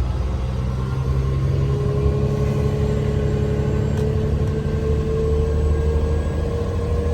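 Concrete mixer truck's diesel engine running under way, its pitch rising slowly as it pulls.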